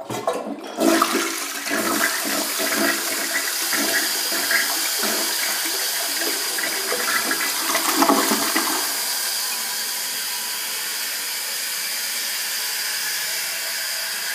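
Crane Plumbing Galaxy toilet flushing through a Mansfield tilt-type flush valve: a sudden rush of water into the bowl with gurgling surges for about nine seconds, then a steady hiss as the tank refills.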